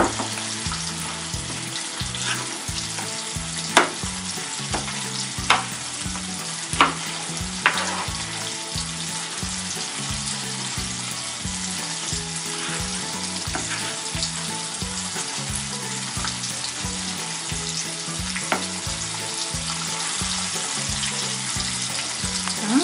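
Spice sauce sizzling and bubbling in a nonstick frying pan as it is stirred with a spatula. The spatula clicks against the pan a few times, mostly in the first several seconds.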